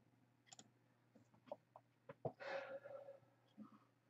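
Near silence with a few faint clicks and one soft breath from the lecturer about two and a half seconds in.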